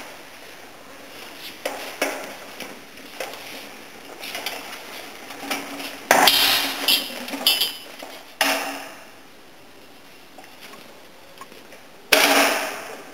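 Empty hand pallet truck being pushed and turned on a concrete floor: scattered clicks and rattles, with loud metallic clanks and knocks, several between about six and eight seconds in, some with a brief ringing, and one more near the end.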